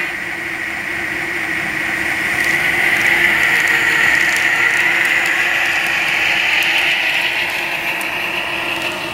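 HO scale Athearn Genesis GP15-1 model diesel locomotive running along the track: the diesel engine sound from its DCC sound decoder's small speaker mixed with the whir of its motor and gears. It grows louder as it comes close, is loudest around the middle, then eases off as it moves away.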